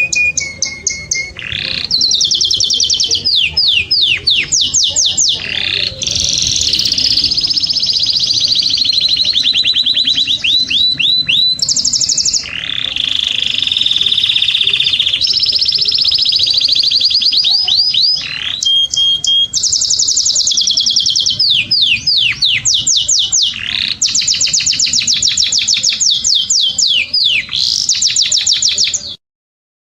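Domestic canary singing a long, high-pitched song of rapid trills and held whistled phrases, one tour running straight into the next. The song cuts off suddenly near the end.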